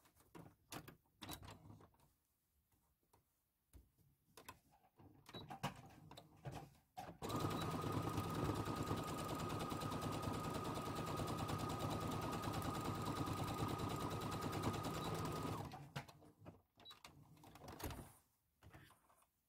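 Brother sewing machine running steadily for about eight seconds with a fast, even stitch rhythm and a constant high whine, topstitching a bag's turning opening closed. Before and after the run, scattered light clicks and rustles as the fabric is positioned and drawn away.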